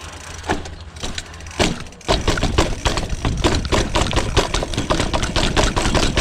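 Dirt jump bike rattling and knocking over a rough drop, a quick run of hard jolts and chain-and-frame rattle starting about two seconds in over a low rumble of wind and tyres.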